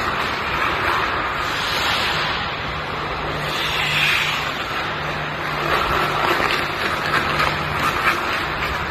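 Ice hockey skates carving and scraping on rink ice: a steady hiss with scrapes at each stride and turn, over a low steady hum.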